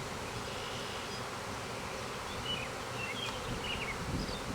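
Honeybee swarm buzzing steadily, a continuous hum of many bees flying around the clustered swarm and the hive box.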